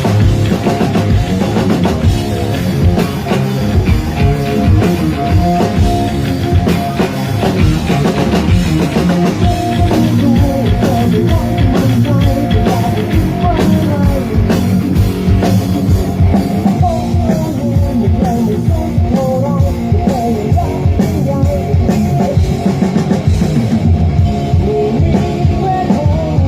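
Live rock band playing loudly at a sound check: a drum kit keeps a steady driving beat under electric instruments and a melodic line.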